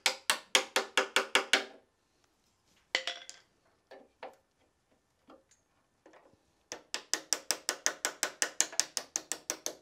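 Rapid, evenly spaced metallic clicks on a loose car fender as trim clips are worked onto its inner rail, the panel ringing with each click. Two runs of about seven clicks a second, one at the start and one from about seven seconds in, with a few single clicks between.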